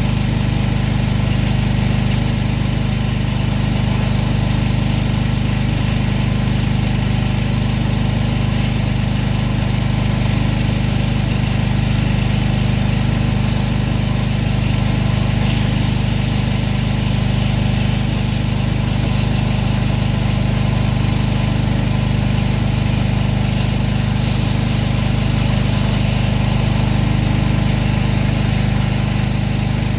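Gas-engine pressure washer running steadily: a constant engine drone with a hiss over it.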